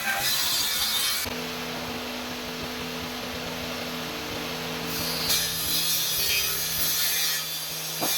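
A sheet of HPL laminate being cut with a steady sawing noise, which changes character about a second in and again around five seconds in.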